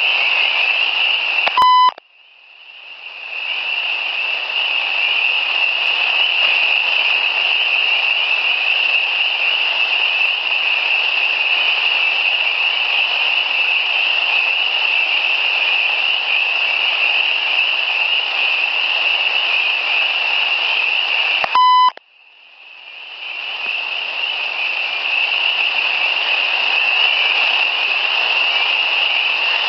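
Digital audio recorder beeping twice as its buttons are pressed: one short beep about two seconds in and another about twenty-two seconds in. Between the beeps the recording carries a steady high-pitched hiss, which drops away after each beep and swells back over a couple of seconds.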